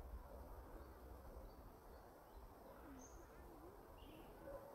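Near silence: faint outdoor ambience with a low rumble, a few faint wavering calls around the middle and two short high chirps near the end.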